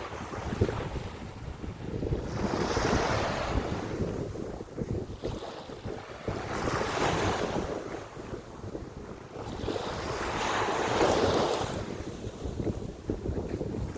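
Small waves breaking and washing up the sand about every four seconds, three surges in all, with wind buffeting the microphone. They are the kind of waves that come ashore after the cruise ships pass, a wake.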